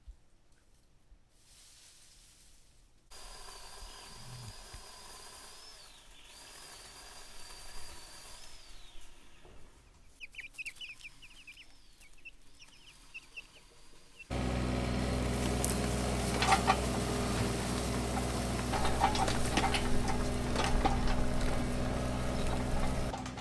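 After about three seconds of near silence, young chickens cluck and peep over a faint high steady tone. About 14 seconds in, a mini excavator's diesel engine cuts in loud and steady, with scraping and knocks as its bucket works the ground and brush.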